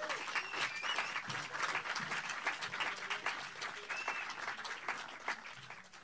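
Audience applauding after a spoken-word performance, a dense patter of many hands clapping that fades out near the end.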